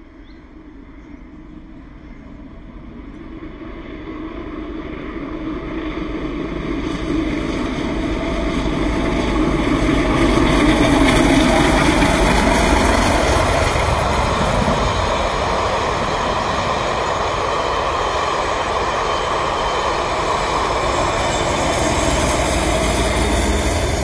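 The Royal Scot, a three-cylinder 4-6-0 steam locomotive, approaching and passing at speed with a train of coaches. The steam exhaust and wheel rumble grow louder over the first ten seconds or so, peak as the engine goes by, and the coaches keep rolling past steadily.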